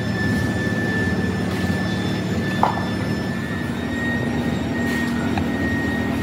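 Steady drone of running foundry machinery with a thin, steady high whine; one short click about two and a half seconds in.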